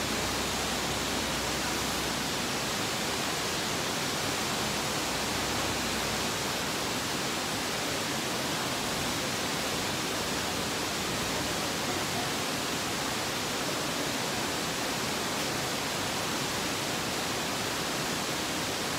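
A steady, even hiss that does not change in level.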